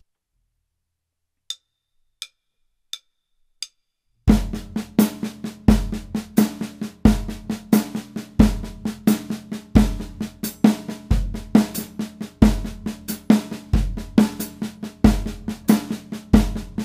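Four light clicks counting in, then a drum kit: a steady stream of eighth-note triplets on the snare drum with an accent on every fourth note, giving a 6/4 feel over the triplets, and a bass drum on a steady pulse about every second and a half.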